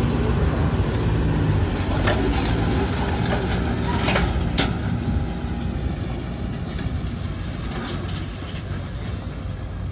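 Mahindra Arjun Novo 75 hp tractor's diesel engine running under load as it pulls a 36-disc harrow through the soil, getting quieter after about five seconds as it works away. A few sharp clicks come about two and four seconds in.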